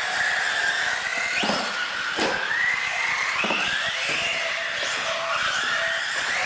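Radio-controlled UTV race trucks' motors whining, the pitch rising and falling as the drivers work the throttle. A few sharp knocks come through in the first half.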